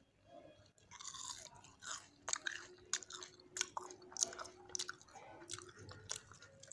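Crisp-fried potato smiley crunching: a quick, irregular run of short crackles starting about a second in, as the crisp outer crust gives way.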